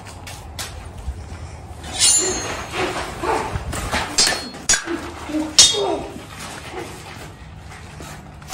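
A scuffle: running footsteps on a dirt floor, then several sharp knocks and short vocal cries, bunched between about two and six seconds in.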